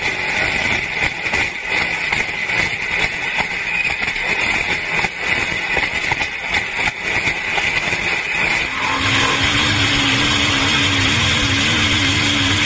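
An off-road buggy driven fast over a dirt track, heard from on board as a rough rushing and rattling with no clear engine note. About nine seconds in it changes to a steady engine drone with a slightly wavering pitch.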